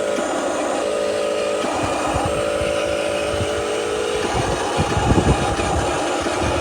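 Remote-control truck's motor and gears whining as it drives, the pitch stepping up and down several times. A cluster of low knocks comes about five seconds in.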